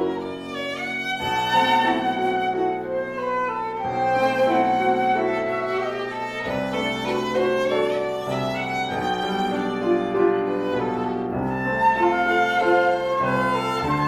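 A trio playing instrumental music: a violin carries a sustained, singing melody over lower held accompaniment notes that change about every two and a half seconds.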